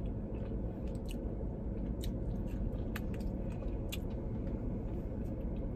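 Close-up chewing of a bone-in chicken wing: wet mouth clicks and a few crisp crackles, roughly once a second, over a steady low hum inside the car.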